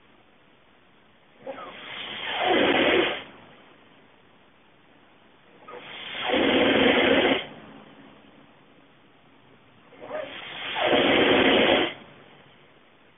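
A person snoring heavily in sleep: three long, rasping snores about four seconds apart, each lasting about a second and a half, with quiet breathing between them.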